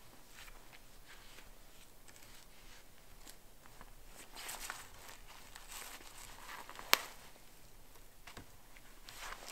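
Quiet rustling and scattered small knocks, with one sharp click about seven seconds in.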